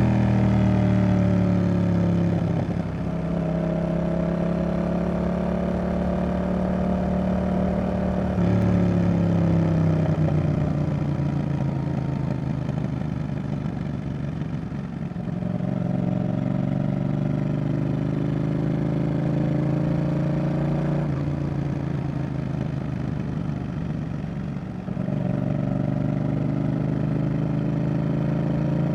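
Yamaha XSR700's CP2 parallel-twin engine through a Roadsitalia aftermarket exhaust, under way. The engine note climbs and falls several times, with abrupt changes in pitch as the rider works the throttle and gears.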